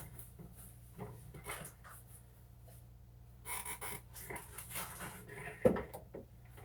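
Quiet panting breaths and faint handling rustles, with a single thump about five and a half seconds in.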